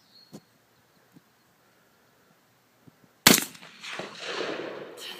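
A single AR-15 rifle shot about three seconds in, a sharp crack followed by a couple of seconds of fading echo.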